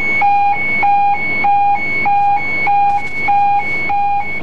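A warship's alarm sounding the alert: a loud two-tone signal switching back and forth between a low and a high tone, about three changes a second.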